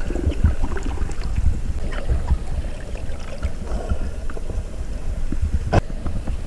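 Seawater lapping and trickling at the shore, with wind rumbling on the microphone and a single sharp click near the end.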